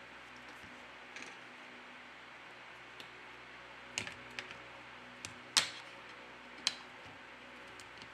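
Scattered small clicks and taps of tools and parts being handled while a smartphone is reassembled, about eight in all, the loudest a sharp click a little past halfway, over a steady faint hiss.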